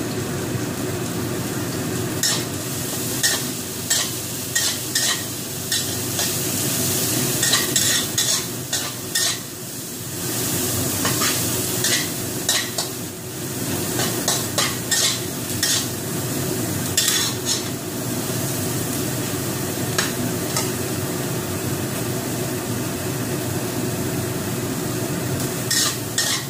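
Spatula stirring and scraping in a stainless steel wok as shallots and dried shrimp fry in oil: a steady sizzle over a low hum, with repeated clicks of the spatula against the pan, busiest in the first half and again near the end.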